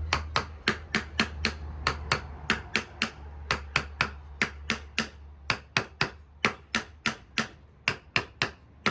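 Rapid, evenly paced hammer blows on wood, about three to four strikes a second, over a steady low hum.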